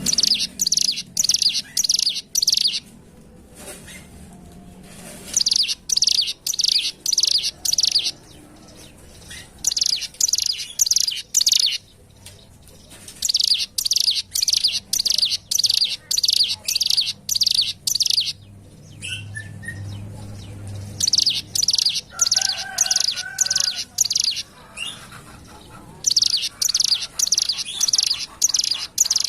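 Ciblek gunung, a mountain prinia, singing: rapid runs of sharp, high, evenly repeated notes, about three or four a second, in phrases of two to three seconds broken by short pauses.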